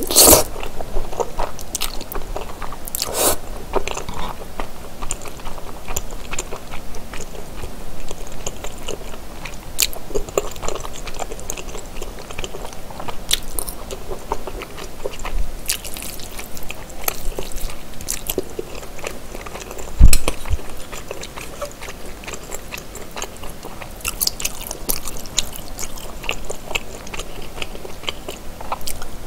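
Close-miked chewing and biting of seafood rosé pasta with wide Chinese glass noodles: a steady run of wet mouth clicks and smacks. One loud low thump about two-thirds of the way through.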